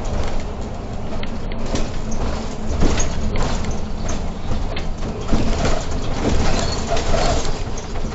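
Irisbus Crossway LE 12M city bus running, heard from inside the driver's cab: steady engine and road noise with irregular rattles and knocks from the body.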